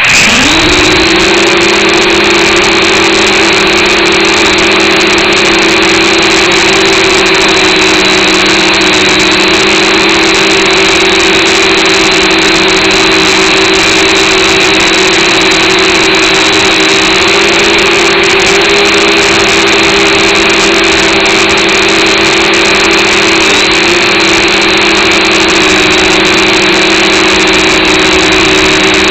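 Quadcopter drone's electric motors and propellers whirring, rising in pitch in the first second as they spin up and then running steady with a high whine.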